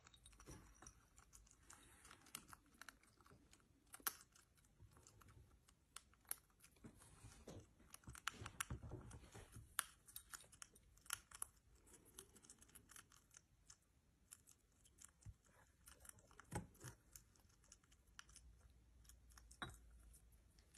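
African pygmy hedgehog eating dry kibble from a ceramic bowl: faint, irregular small crunching clicks.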